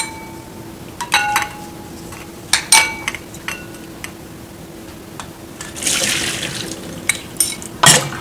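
Hot water being poured off blanched mung bean sprouts through a metal mesh strainer, a splashing pour of about a second around six seconds in. Before it, a few sharp clinks of a ceramic ladle against a ceramic bowl, and a few knocks near the end.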